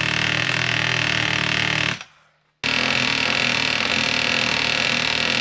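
A power tool running loud and steady with a buzzing hum. It stops about two seconds in, then starts again half a second later and runs on.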